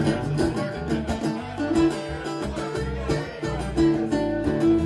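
Live acoustic guitar strumming with a bass guitar line underneath, a few held notes ringing out near the end.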